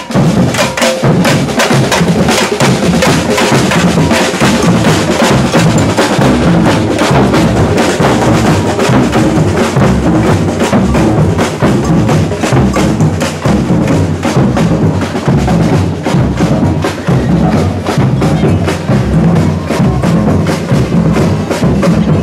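Street percussion band of bass drums and snare drums playing a steady rhythm, the drums struck with mallets and sticks.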